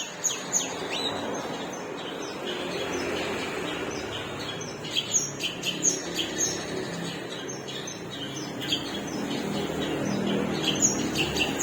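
Long-tailed shrike (cendet) singing: rapid series of sharp, high chirps in bursts separated by short pauses, over a steady background hiss.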